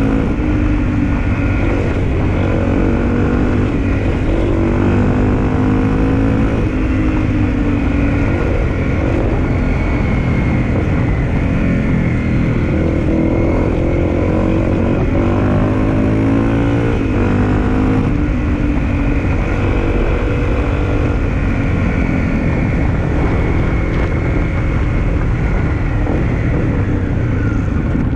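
Honda CRF250L's single-cylinder four-stroke engine running under way, heard close to its exhaust, its note rising and falling in pitch with the throttle over a steady low rumble.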